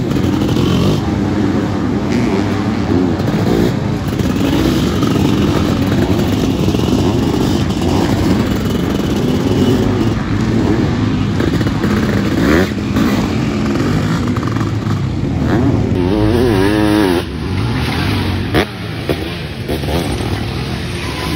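Motocross sidecar outfits racing past on a dirt track, their engines revving hard, with the pitch rising and falling as they take the corner. Around three-quarters of the way through, one engine warbles up and down quickly, and a brief sharp crack follows near the end.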